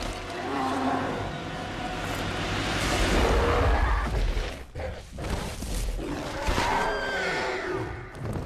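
Movie fight-scene sound effects for a giant ape fighting a tyrannosaur: heavy crashing over a deep rumble, loudest around three to four seconds in, then a drawn-out cry that rises and falls in pitch near the end.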